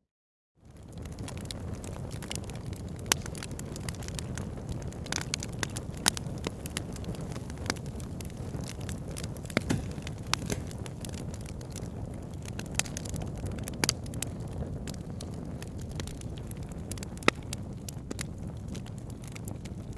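Wood fire burning in a fireplace, crackling. Flames give a steady low rumble under frequent sharp pops, with a few louder snaps. It begins after a moment of silence and fades in.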